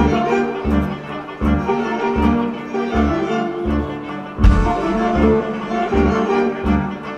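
String orchestra music with violins, cello and double bass, a low pulse about twice a second, and a heavy accent about four and a half seconds in.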